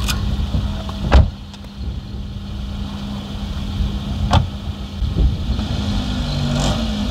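A car engine runs steadily while driving, with low road rumble. Two sharp knocks cut through it, the louder one about a second in and another about four seconds in.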